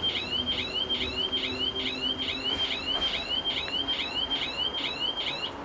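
Electronic level-crossing warning bells sounding a rapid repeating rising chirp, about two and a half chirps a second, that stops abruptly near the end.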